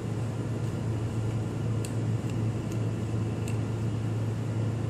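A steady low hum, with a few faint clicks as a threaded coaxial antenna connector is screwed onto a radio unit's socket.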